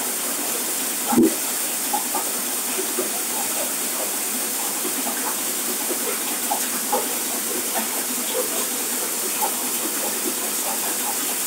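Tractor-driven grain cleaning machine running: its winnowing fan gives a steady rushing hiss, with scattered light ticks and one sharp knock about a second in.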